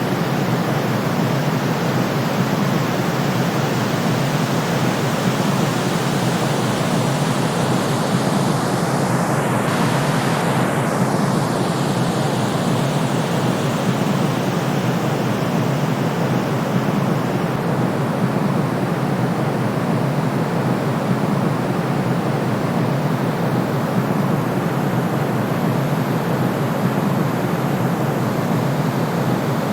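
Steady white noise for sleep: a constant, even hiss with no rhythm or breaks, weighted toward the low and middle range.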